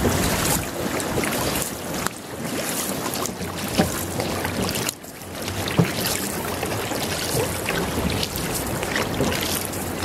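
Outrigger canoe paddles stroking and splashing in the water, with water rushing along the hull and wind buffeting the microphone.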